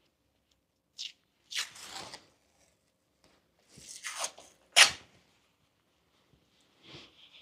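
Adhesive tape being pulled off its roll and torn in several short rips, the sharpest and loudest about five seconds in.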